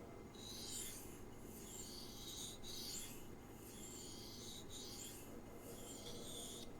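A steel knife blade being stroked across a resin-bonded diamond whetstone, about six faint hissing, rasping passes of about a second each, raising a burr on the second side of the edge.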